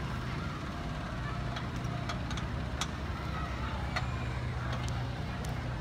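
Fire engine's aerial ladder truck engine running steadily with a low hum, with several sharp clicks scattered over it.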